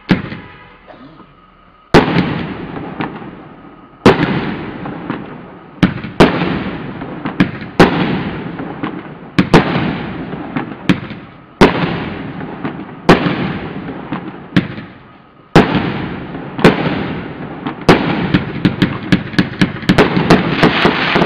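Grave Shaker 210-shot compound firework cake firing. About two seconds in, loud bangs begin and come every second or two, each trailing off in a decaying rumble as the shells burst. Near the end they quicken into a rapid run of sharp cracks, several a second.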